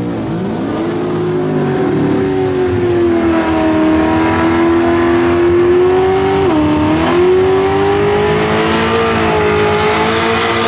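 Drag racing car's engine held at high revs through a burnout. The note climbs in the first second and holds steady, sags briefly a little past the middle, then climbs back.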